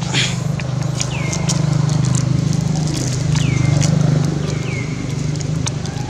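Dry leaf litter crackling and rustling as macaques shift and handle the leaves, with three short high calls that fall in pitch, over a steady low hum.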